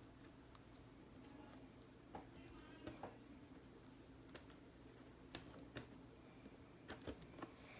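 Near silence with faint, scattered clicks and taps from handling a replacement laptop LCD panel while fitting it into the laptop's lid.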